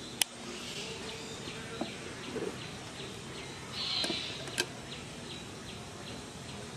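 Outdoor background noise with a soft, regular chirping about three times a second. A sharp click comes just after the start, and a brief hiss and a second click come a little past the middle.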